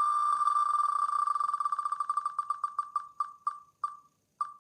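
Wheel of Names app's spin sound played through a phone speaker: a fast run of short, identical pitched ticks that slows steadily, the ticks spreading further and further apart as the wheel comes to rest.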